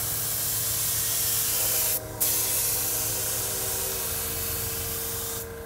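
Compressed-air paint spray gun hissing steadily as it sprays paint onto plywood, with a short break about two seconds in.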